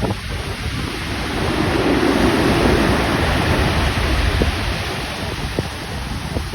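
Stormy sea surf: a large wave breaks and rushes up the beach, swelling about a second and a half in and then easing off, over heavy wind buffeting the microphone.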